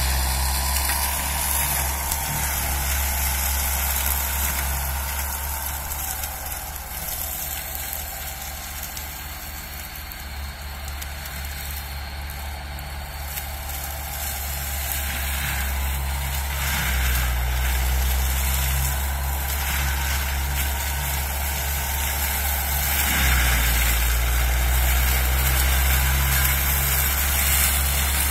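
Zetor 9641 turbo tractor's diesel engine running steadily while driving an FAE forestry mulcher through brush. The low drone fades in the middle as the tractor moves off, then grows louder again in the second half as it comes back.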